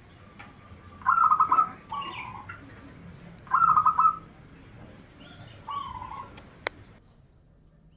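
Zebra dove (perkutut) cooing: two loud, rapid trilled coo phrases, each followed by a lower falling note, then a fainter phrase and a single sharp click near the end.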